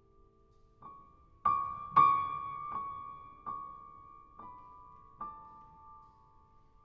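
Solo jazz piano playing a slow, sparse line of single high notes, each left to ring and fade. The loudest two strike about a second and a half and two seconds in, and the notes that follow are softer.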